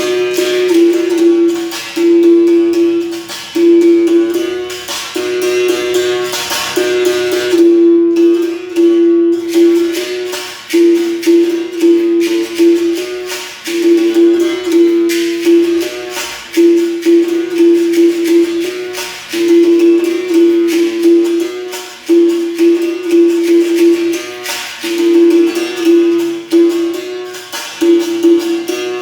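Berimbau played in a steady repeating capoeira rhythm: the struck wire rings on one main note in short phrases, with a shaken rattle ticking along.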